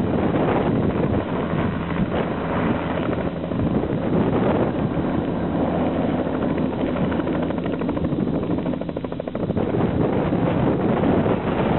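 Bell 206 JetRanger turbine helicopter lifting off and flying away: a steady turbine whine and rotor beat with rotor wash buffeting the microphone. The low rotor hum thins out about nine seconds in as it draws away.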